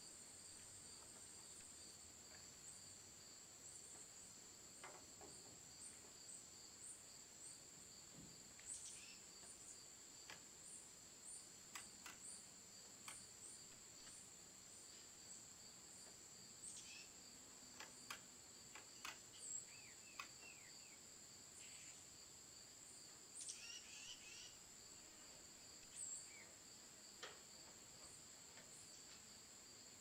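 Faint, steady, high-pitched insect chorus, with scattered light taps and a few short chirps through the middle.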